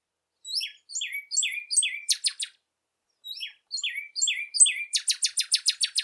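Northern cardinal singing: two phrases, each a series of clear down-slurred whistles ending in a fast run of short notes. The second run is the longer and faster, about nine notes a second.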